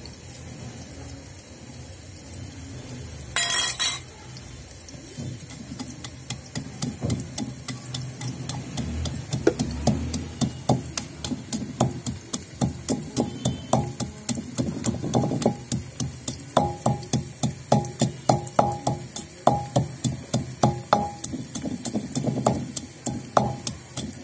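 Bamboo pestle pounding garlic, ginger and green chillies in a terracotta mortar: regular dull strikes, about two a second, starting a few seconds in. A short loud clatter comes about three and a half seconds in.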